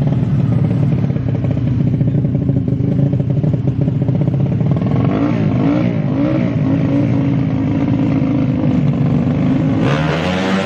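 Tuned small motorcycle engines running, then revved up and down several times from about halfway, with a louder, higher rev near the end.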